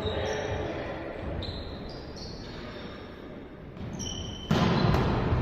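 Indoor volleyball play echoing in a sports hall: the ball being struck and bouncing, with short high squeaks of shoes on the court floor, and a sudden louder burst of noise about four and a half seconds in.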